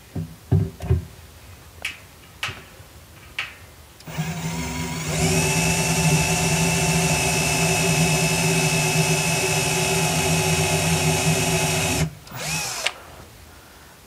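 Power drill boring into a washing machine's steel agitator shaft: a few knocks and clicks, then the drill spins up about four seconds in, runs at a steady pitch for about seven seconds, and stops abruptly near the end.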